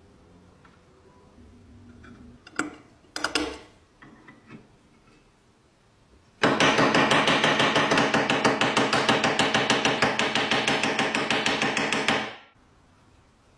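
Rapid, even hammer blows peening over a steel rivet through the cast-iron plate of an old iron, about six or seven strikes a second for some six seconds, with the metal ringing under them, then stopping abruptly. A couple of short metal clinks come before it.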